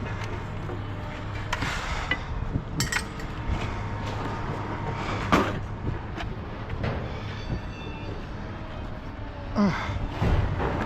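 Scattered knocks and clinks, as of metal scrap being handled and worked on, over a steady low hum.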